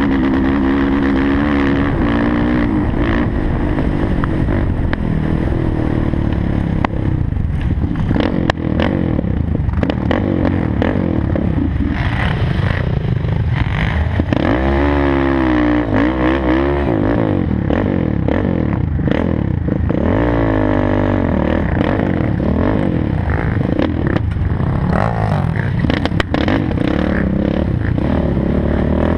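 Sport quad's engine, heard up close on board, revving up and down hard as it is ridden over rough ground, its pitch climbing and dropping again and again, with a quick run of rapid revs about halfway through. Occasional knocks and rattles come from the machine jolting over bumps.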